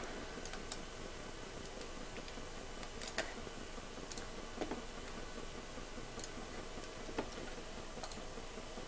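A handful of faint, sharp clicks from a computer mouse and keyboard, spaced a second or so apart, over a steady low hiss.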